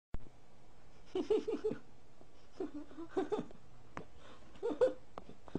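People giggling in three short bursts of rapid, broken laughter. There is a sharp click at the very start.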